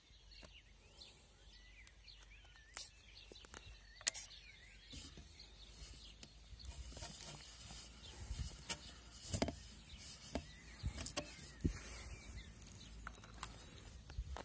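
Quiet outdoor ambience: faint bird chirps early on, scattered clicks and knocks, and a low rumble underneath. The truggy's nitro engine is not running.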